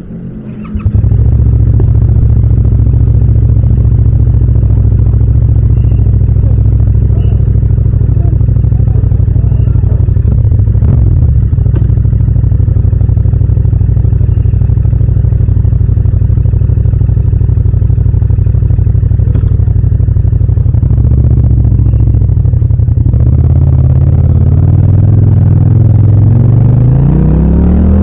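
Yamaha MT-07 (FZ-07) 689 cc parallel-twin engine idling steadily, recorded raw without wind noise. Near the end the engine note rises steadily in pitch as the bike accelerates away.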